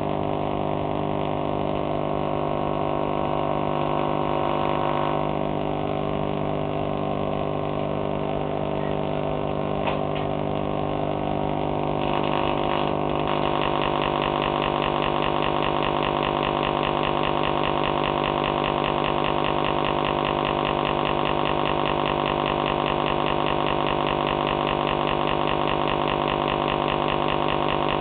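Vacuum tube Tesla coil running, its spark discharge giving a steady buzz with many overtones. About thirteen seconds in, as a stick is held into the discharge and draws a larger flame-like arc, the buzz grows louder and brighter and stays that way.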